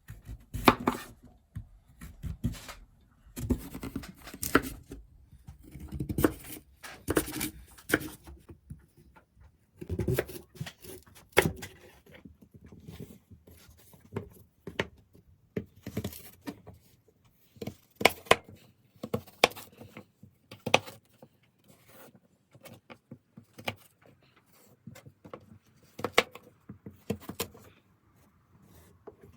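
Kitchen knife cutting peeled sweet potatoes into fry-shaped sticks on a cutting board: irregular knocks and clicks of the blade going through and striking the board.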